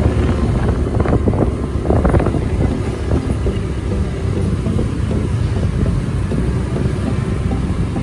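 Steady low rumble of a road vehicle on the move, with wind buffeting the microphone.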